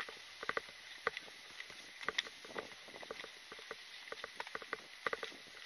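Light, irregular clicks and taps of gear carried by someone walking, rattling against itself and the body-worn camera.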